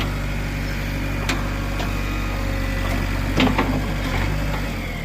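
Heavy diesel engine running steadily at low revs, with a sharp knock about a second in and a louder burst of metallic clanks about three and a half seconds in.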